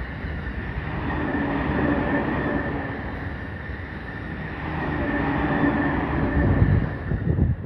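Train passing on the rails: a continuous rumble of wheels on track with a thin steady high tone running through it, easing a little midway and swelling again.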